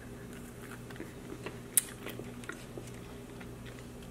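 Two people biting and chewing dense oatmeal cookies: quiet, scattered mouth clicks and chewing noises, with one sharper click a little under two seconds in. A faint steady hum runs underneath.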